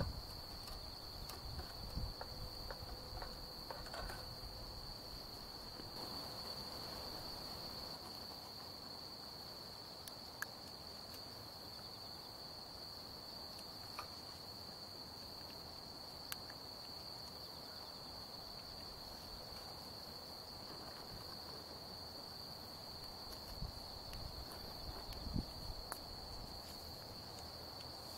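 Crickets trilling nonstop at one high steady pitch, with a few faint scattered clicks and low knocks.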